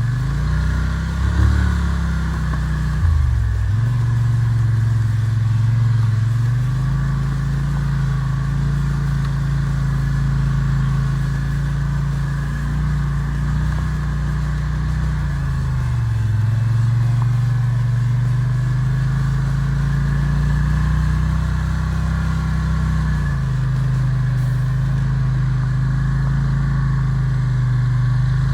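An ATV engine running under way, its pitch dipping and climbing back a few times as the throttle is let off and opened again.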